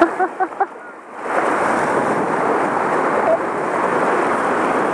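Boston terrier letting out a quick run of about four short yaps at the start, then shallow surf washing in with wind buffeting the microphone.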